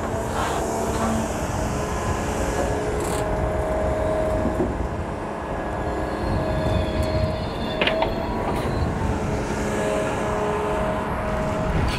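John Deere 210G excavator running under load while digging, its hydraulics whining in stretches of a second or two, with a few sharp clanks from the bucket and boom.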